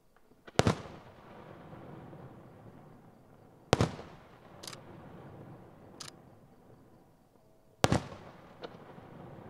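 Aerial firework shells bursting: three loud booms about three to four seconds apart, each trailing off in a rumbling echo, with a few fainter cracks in between.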